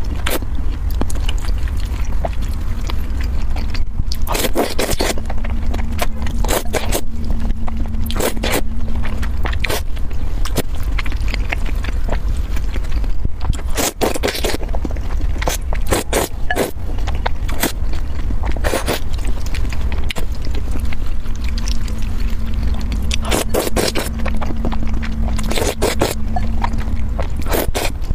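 Close-up noodle slurping: strands in tomato-and-egg sauce sucked off chopsticks in repeated wet slurps at irregular intervals, some quick and some drawn out for about half a second, over a steady low rumble.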